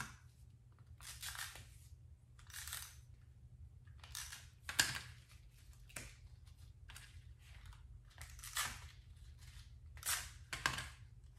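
Handheld tape runner drawn in short strokes across card and acetate, laying down adhesive tape: about eight or nine brief scratchy zips spaced a second or so apart, the loudest about five seconds in.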